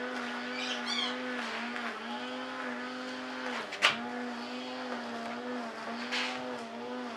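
A steady machine hum on one even pitch, dipping slightly about once a second. A sharp knock comes about four seconds in and a lighter one near six seconds, as parts on the model hull are handled.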